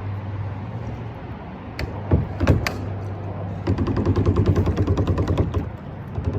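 A fishing reel clicks rapidly for about two seconds, the sound of a hooked fish pulling line off the drag. A few sharp knocks come before it, over a steady low hum.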